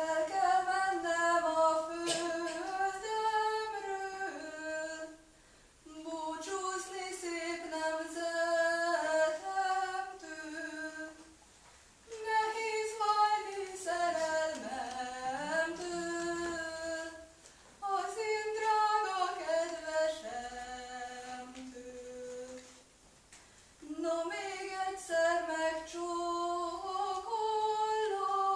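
A young woman singing a Hungarian folk song solo and unaccompanied, in five long phrases with short breaks for breath between them.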